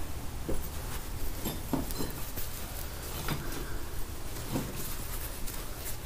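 Soft, scattered taps and scuffs, about five over the few seconds, of a person moving carefully on foot, over a low rumble of handling noise on a body-worn camera's microphone.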